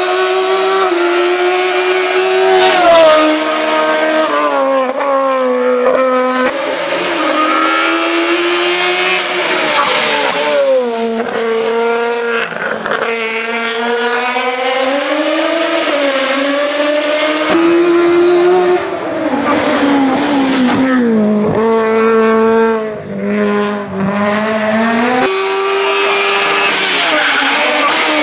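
Racing VW Scirocco Mk1's high-revving, naturally aspirated 1.6-litre engine driven hard. The engine note repeatedly climbs as the revs rise, then steps down at each gear change or lift of the throttle.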